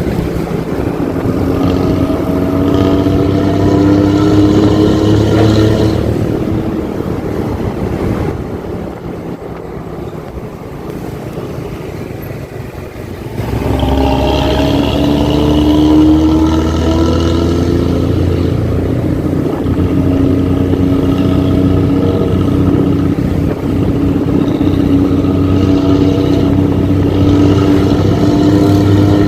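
Diesel bus engine with a 'ngorok' (growling) racing exhaust pulling hard, its pitch climbing steadily. It eases off and drops quieter for several seconds in the middle, then comes back loud under load about halfway through and climbs slowly again.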